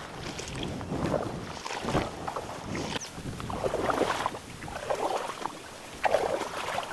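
Water swishing in repeated strokes, about one every second, over a steady background hiss.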